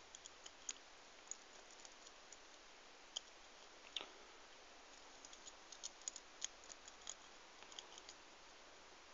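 Faint, irregular clicks and ticks of a lock pick working the pin tumblers of a Yale 60mm brass padlock during single-pin picking.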